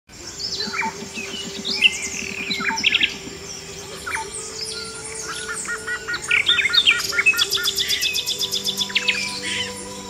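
Tropical jungle birdsong: several different birds chirping and whistling over one another. About halfway through, one bird gives a run of about ten evenly repeated notes, followed by a fast series of sharp high notes.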